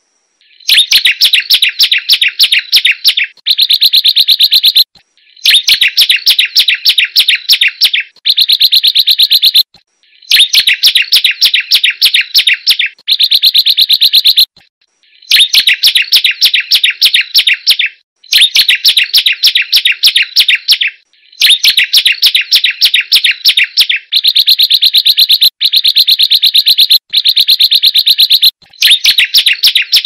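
Prenjak gunung (a prinia) singing: loud phrases of rapid, dry, clicking notes, each about three seconds long, repeated one after another with short pauses between them.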